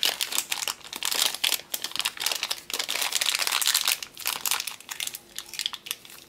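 Thin clear plastic bag crinkling and crackling in the hands, in quick irregular bursts, as a small mount part is worked out of it.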